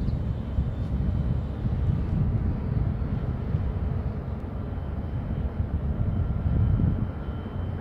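Wind buffeting the microphone: a low, rumbling rush that flickers in strength. A faint steady high tone runs underneath.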